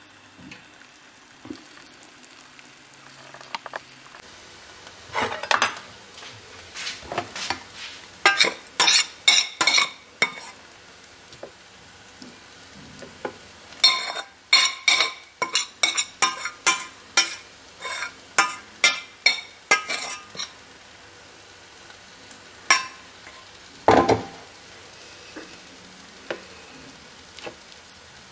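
A metal spoon scraping and knocking against stainless steel cookware in two runs of quick, ringing strokes, a few a second, then a couple of single knocks. This is cooked greens being scraped out of the pan into a bowl.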